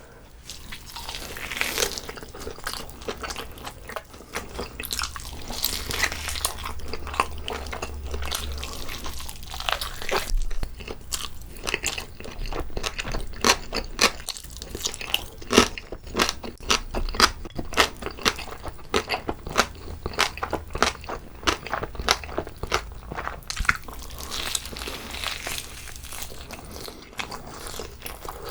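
Close-miked eating of a whole braised pork hock (jokbal): biting and chewing, with a dense run of short, sharp mouth clicks and smacks.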